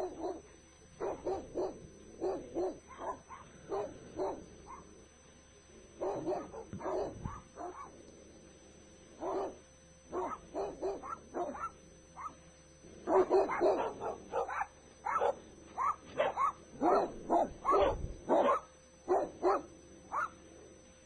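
Two dogs barking over a telephone line, in quick runs of short barks with brief pauses between them.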